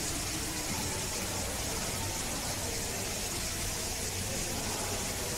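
Steady background hiss with a low hum, and faint distant voices now and then.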